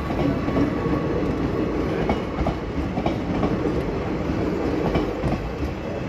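Coaches of a passenger express train rushing past at speed: a steady, loud rumble of wheels on rails, with wheels clacking over the rail joints now and then.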